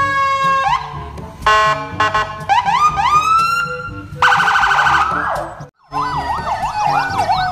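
Electronic police car siren cycling through its tones: a steady note, then rising whoops, then a rapid warble. It breaks off briefly near the end and comes back as a fast yelp sweeping up and down.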